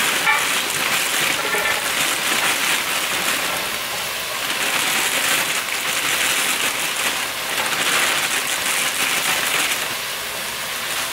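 Steady sizzle and crackle of fresh green beans hitting hot canola oil in an aluminium sauté pan as they are tipped in and spread out.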